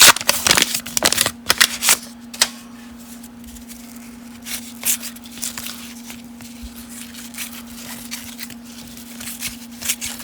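Baseball cards being handled and shuffled: a quick run of crisp flicks and rustles in the first couple of seconds, then fainter, sparser card sounds. A steady low hum runs underneath.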